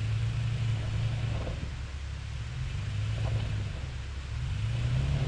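Off-road 4x4 truck's engine running under load, its pitch and loudness rising and falling in surges as it works over a trail obstacle.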